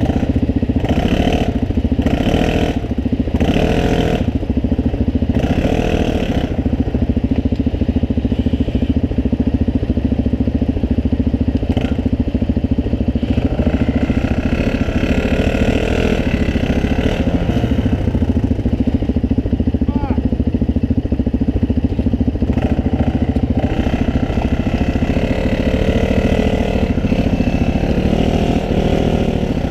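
ATV engine running hard under throttle, loud and steady with no letup.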